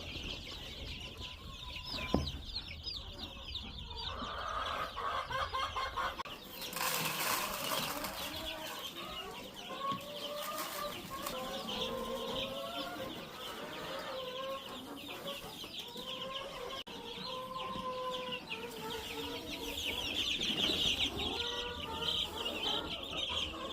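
A brood of baby chicks peeping continuously in a dense, high-pitched chorus, with lower clucking calls rising and falling underneath. There is a brief rustle about seven seconds in.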